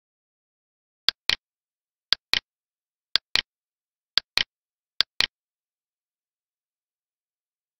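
Computer mouse button clicked five times, about once a second. Each click is a sharp press followed about a fifth of a second later by the release.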